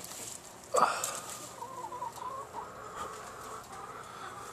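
A chicken clucking: one short call about a second in, then a quieter wavering note for a second or two.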